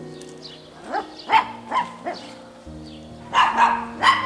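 A dog barking repeatedly in two runs of short, sharp barks, over background music with sustained notes.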